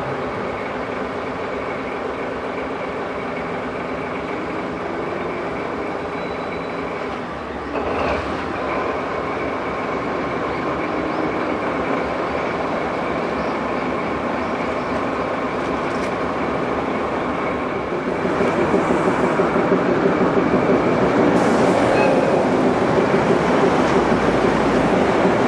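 Diesel locomotive KD55 103 standing with its engine running steadily, a thin whine riding on it. About eight seconds in the sound steps up slightly, and from about eighteen seconds in the engine runs clearly louder and rougher.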